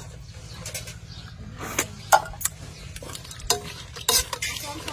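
A metal spoon stirring soup in an aluminium pot, knocking and scraping against the pot's side with several sharp clinks at irregular intervals.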